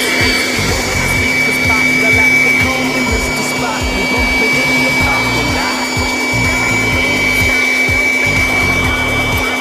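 Electric blower motor running with a steady high whine, over background music with a steady beat.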